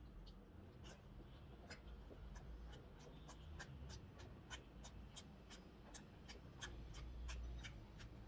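Close-miked chewing and mouth clicks of someone eating chicken momos: faint, irregular sharp clicks, a few a second.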